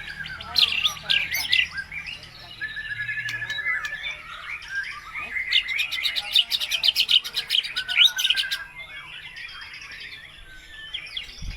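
White-rumped shama singing a varied song of whistled phrases and imitated calls of other birds, with a long rapid trill in the middle.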